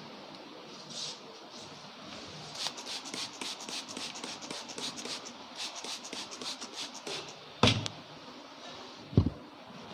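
Rapid rhythmic hand strokes of a barber's head massage, about four to five a second for several seconds, then a sharp slap and a heavier, deeper thump near the end.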